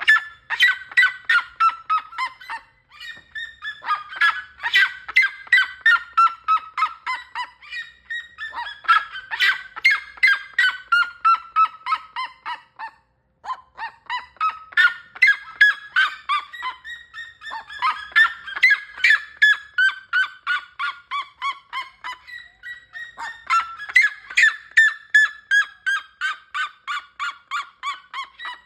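Red-legged seriema calling: loud, rapid yelping notes in bouts of a few seconds, each bout falling in pitch, repeated about six times with short gaps between.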